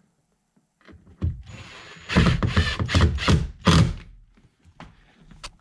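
Ryobi cordless impact driver driving a screw through a seat hinge into a boat seat's plastic base: the motor spins up, then about five short bursts of hammering as the screw is snugged down.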